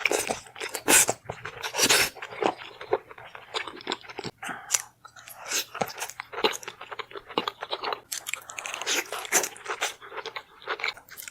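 A person biting and chewing crunchy food close to the microphone, a dense run of crisp crunches with brief pauses.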